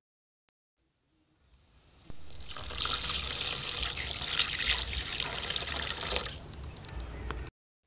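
Water poured in a stream into a metal wok over sliced raw beef, splashing and filling the pan. It builds up after a second of silence, runs loud for about four seconds, tapers off, and then cuts off suddenly.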